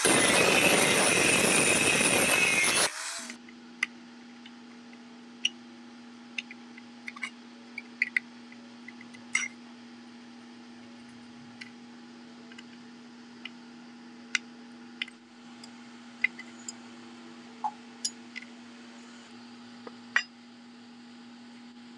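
Handheld angle grinder grinding the steel of a knife blade, cutting off suddenly about three seconds in. Then scattered small metallic clicks and clinks as screws are handled and pushed into holes in the steel blade, over a faint steady hum.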